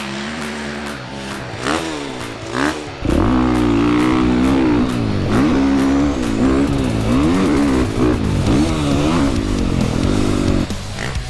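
Dirt bike engine revving hard, its pitch climbing and dropping again and again as the rider throttles on and off around the motocross track. It gets much louder about three seconds in.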